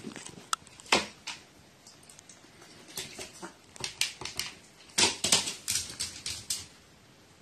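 A pet crow sneezing: a string of short, sharp bursts. The loudest comes about a second in, and a quick run of them follows about five to six and a half seconds in.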